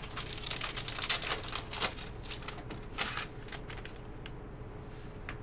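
Trading cards being handled: quick clicks and rustles as cards slide and snap against each other. The sounds are dense for about four seconds, then thin out near the end.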